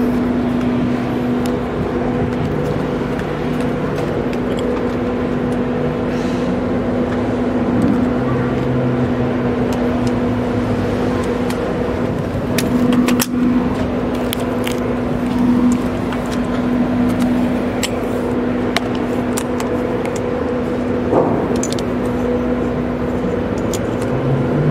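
Steady machinery hum of a car ferry under way: a constant low drone with a fainter higher tone above it, and scattered light clicks and knocks.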